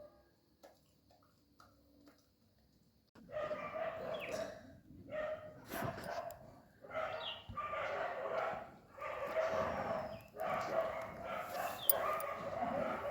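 Dogs barking and whining: after about three seconds of near quiet with faint ticks, a string of calls starts suddenly, each lasting about a second with short gaps between them.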